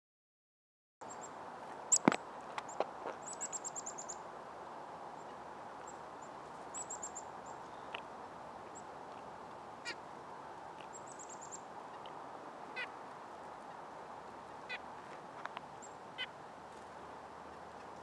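Wild birds calling: a white-breasted nuthatch gives a few nasal 'yank' calls about two seconds apart, among quick series of high thin chips, over a steady background hiss. A sharp knock about two seconds in is the loudest sound.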